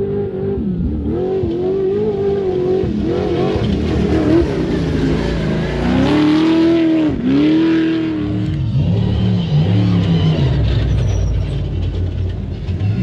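Off-road race vehicles passing at speed one after another, engines revving up and down as the drivers work the throttle over the rough course. The loudest, highest revving comes about halfway through, then the engine note drops lower.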